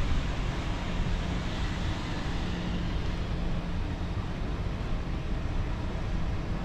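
Suzuki GSX-R125's single-cylinder four-stroke engine running at a steady pitch, with road and wind noise.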